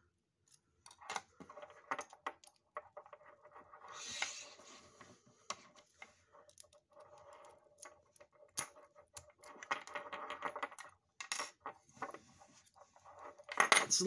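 A lock pick clicking and scraping in the keyway of a cheap two-wafer window sash cable lock as its wafers and core are handled: scattered sharp metal clicks with a few short stretches of scraping.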